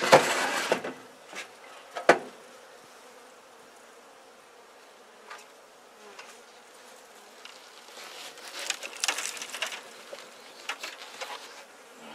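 Honeybees buzzing around an opened colony, with handling noise close to the microphone: a loud rustle at the start, a sharp knock about two seconds in, and more rustling toward the end.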